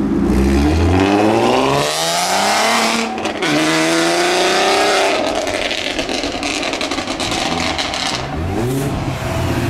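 Volkswagen Golf Mk4 R32's VR6 engine accelerating hard away, its note rising steeply, dropping at a gear change about three seconds in, then climbing again. Another car's engine comes up near the end.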